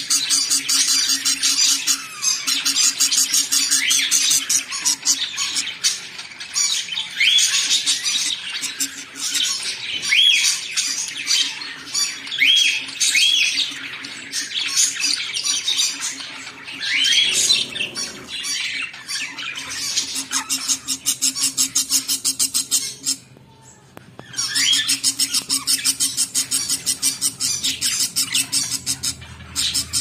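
Budgerigars in a nest box calling: a fast, steady run of high-pitched repeated chirps, typical of chicks begging while being fed, with short rising squawks mixed in and a steady low hum underneath. The calling breaks off briefly about three-quarters of the way through, then resumes.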